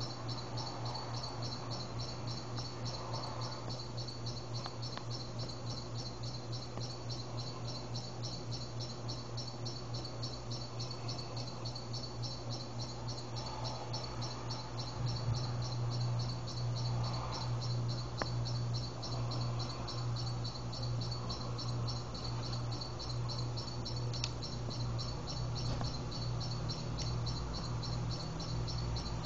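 Insects, crickets or katydids, chirping in a fast, even pulse of about five a second, over a low steady hum that grows louder about halfway through.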